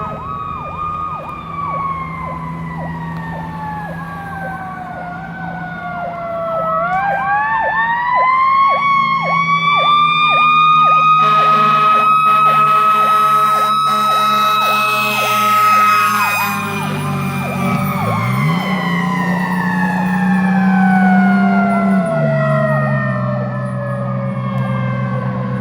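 Fire engine's Federal Q mechanical siren winding down, spinning back up to a held peak about seven to ten seconds in, then coasting slowly down, over an electronic siren yelping steadily about twice a second. Deep air horn blasts sound in the middle and again a little before the end.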